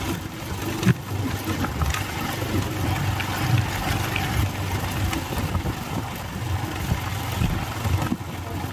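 Borewell drilling rig running: a steady low engine rumble with occasional sharp knocks, the strongest about a second in.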